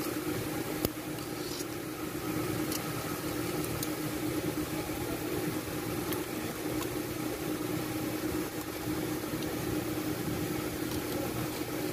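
Steady mechanical hum with a constant tone, and a few faint sharp clicks as the rocker arms of the diesel's valve train are worked by hand to check the tappet clearance.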